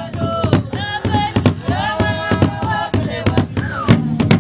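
Music: a singing voice over a quick, regular beat of sharp percussive strikes.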